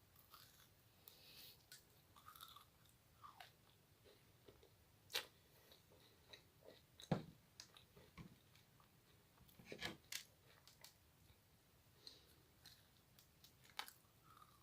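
Faint chewing and biting of macarons: soft crunches and small mouth clicks scattered irregularly, with a few sharper crunches about five, seven and ten seconds in.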